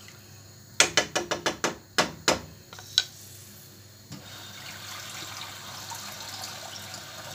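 A wooden spoon knocks about a dozen times in quick succession against a stainless steel pot. From about four seconds in, a kitchen tap runs steadily, filling a bowl with water.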